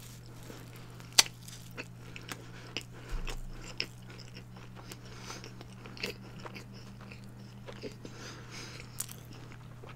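Close-miked chewing of a mouthful of burger: soft wet mouth sounds with scattered sharp clicks and smacks, the sharpest about a second in. A steady low hum runs underneath.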